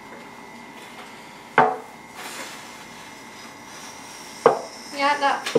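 Tableware set down on a table: a plate knocks down with a short ring about a second and a half in, then another ringing knock near the end followed by a brief rattle and a click.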